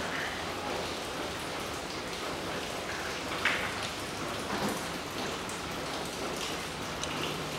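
Steady rain falling, an even hiss throughout, with a single sharp click about halfway through and a few faint ticks of the spark-plug tools being handled.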